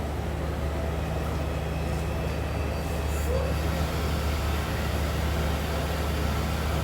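Electric kitchen blender running steadily, with a constant low motor hum under a rushing noise, as it blends boiled scent leaves.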